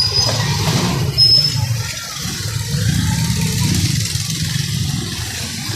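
A motor vehicle engine running with a steady low rumble as street traffic passes. Two brief high-pitched squeaks come near the start and about a second in.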